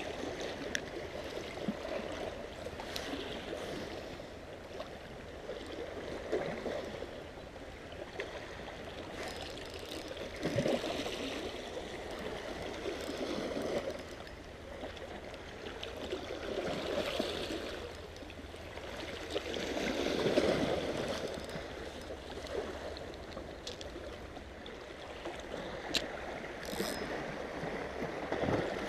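Small sea waves lapping and sloshing against shoreline rocks, swelling and easing every few seconds, with a sharp click near the end.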